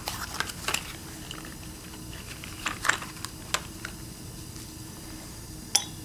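A few scattered light clicks and taps, the sharpest near the end, over a faint steady fizz: a lump of chalk handled and dropped into a glass flask of hydrochloric acid, bubbling as it gives off carbon dioxide.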